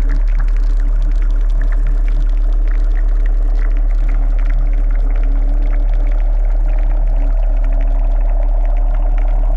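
Dark ambient sound-design soundtrack: a loud, steady deep drone with a few held tones over it and wet crackling, gurgling textures. A higher tone swells and rises slightly in the last few seconds.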